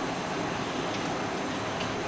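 Steady hiss with two faint light clicks, from thin cables and connectors being handled inside a computer case.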